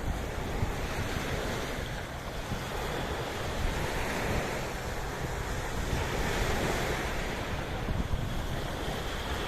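Sea waves washing ashore in slow, repeated swells, with wind buffeting the microphone as a gusty low rumble.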